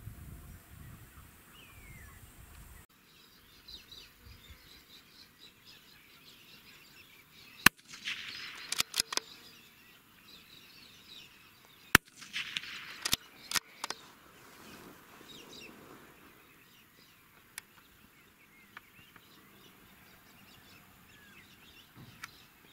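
Two shots from a CZ 455 .22LR rifle firing CCI Standard Velocity rounds, about four seconds apart, each a sharp crack followed within a second or so by a few quieter clicks. Birds chirp faintly throughout.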